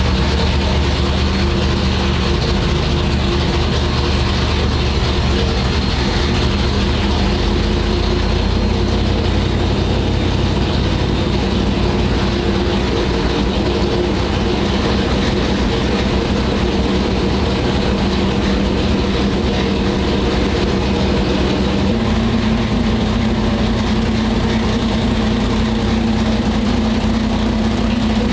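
Freshly built 540-cubic-inch big-block Chevrolet V8 running on its first start-up. The engine note is steady and rises slightly in speed about 22 seconds in.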